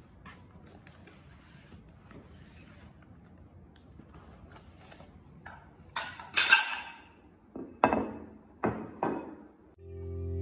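Paper packaging handled: a cardboard pastry box and a paper bag give soft rustles and light taps, then a loud burst of paper crinkling about six seconds in, followed by a few sharper rustles. Music comes in near the end.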